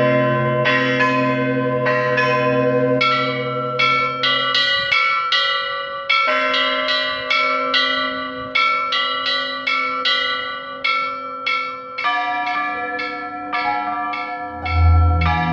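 Church bells pealing, a run of strikes at changing pitches, about two a second, each ringing on and fading. A low steady drone lies under them for the first few seconds, and a deep low tone swells in near the end.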